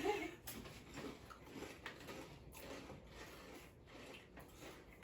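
Faint, irregular crunching of people chewing potato chips.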